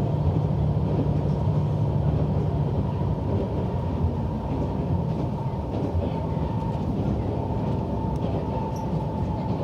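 Diesel railcar heard from inside the passenger cabin while running at speed: a steady rumble of engine and wheels on rail with a thin steady whine, a few faint clicks over rail joints, and the engine's low hum easing off about two seconds in.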